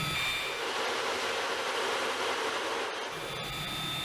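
Afterburning military jet engine running with its afterburner lit, in a hush house test cell: a steady roar of exhaust noise. A faint high whine above it drops out about half a second in and returns near the end.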